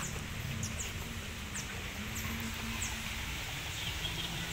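Small birds chirping: a series of short, high chirps that fall in pitch, most of them in the first three seconds, over a steady low outdoor rumble.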